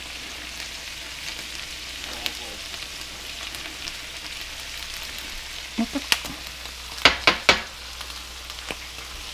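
Vegetables frying in a hot pan with a steady sizzle, with a few light clicks and then three sharp knocks in quick succession about seven seconds in.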